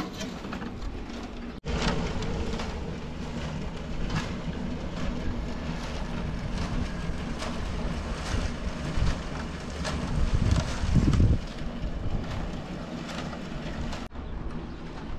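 Wind buffeting the microphone as a low rumble that comes in gusts, strongest about ten to eleven seconds in, with faint scattered knocks.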